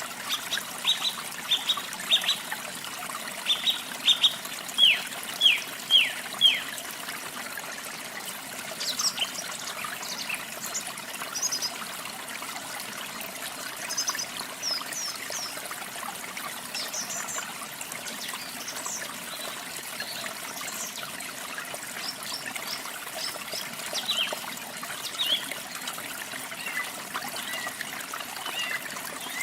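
Water from a small waterfall trickling steadily, with songbirds chirping over it. In the first several seconds there is a quick series of downward-sliding notes, followed by scattered higher, shorter chirps.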